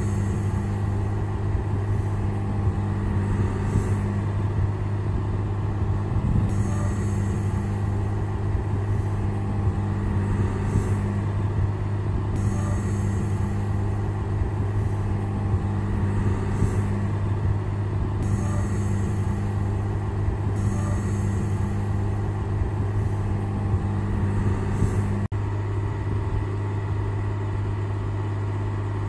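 Workboat's engine running steadily while its hydraulic crane works the grab, lifting and lowering a log. A steady low hum, with a higher drone that comes and goes every few seconds as the crane moves and stops near the end.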